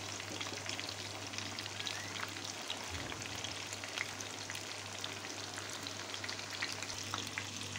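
Pieces of tahu bacem (spice-braised tofu) deep-frying in hot oil in a pan: a steady sizzle with dense, irregular crackling pops.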